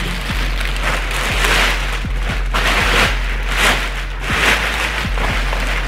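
Thick clear plastic bag rustling and crinkling in loud, irregular surges as a wrapped bicycle frame is handled and pulled out of it.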